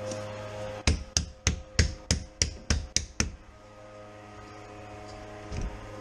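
A quick, even run of nine sharp knocks, about three a second, then one duller thump near the end, over a steady low hum.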